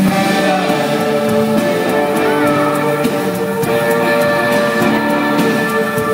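Live band music with a man and a woman singing together in long held notes.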